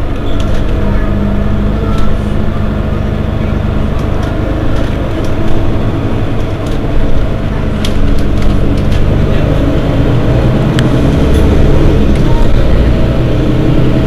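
Mercedes-Benz Citaro Facelift city bus engine idling with a steady low hum while the bus stands still, with a few light clicks on top.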